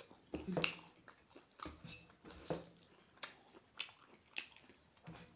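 A person chewing a mouthful of rice and curry with open-mouthed smacking and wet mouth clicks, close to the microphone, about two clicks a second.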